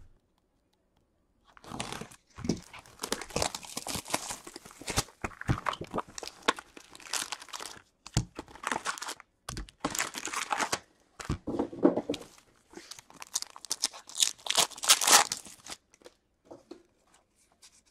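Wrappers of Upper Deck Series 2 hockey card packs crinkling and tearing as the packs are ripped open. The crinkling starts about a second and a half in and dies down to a few light rustles near the end.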